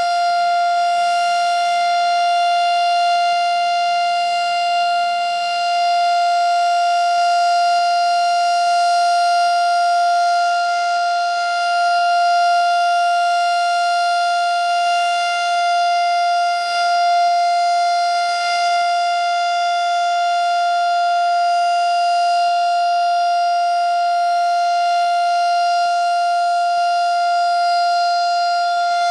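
Darley STH-10 electromechanical outdoor warning siren sounding a loud, steady alert tone for its routine test. It holds one high pitch with no rise or fall.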